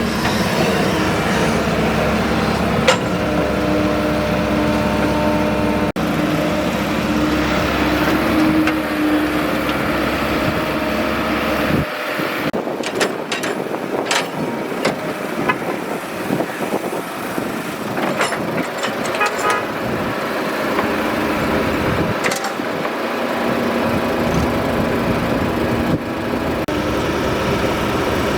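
Excavator's diesel engine running steadily, with a low rumble and a few held tones. About twelve seconds in the low rumble drops away and a stretch of clicks and rattles follows before the deeper engine sound returns.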